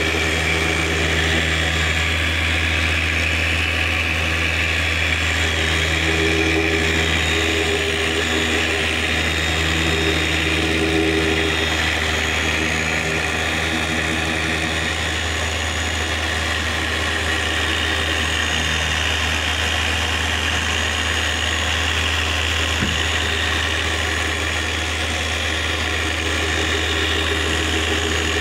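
Electric buffing polisher running steadily with a steady low hum, its pad working cutting compound on a plastic headlight lens. This is the first cut of a headlight restoration, kept going after the compound's wet layer has dried.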